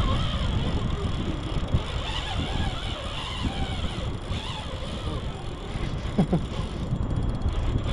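Spinning reel's drag buzzing as a hooked salmon runs and pulls line off, over a steady low rumble.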